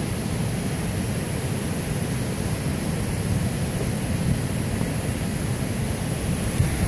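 Steady rushing of running water, an even noise that is heaviest in the low range.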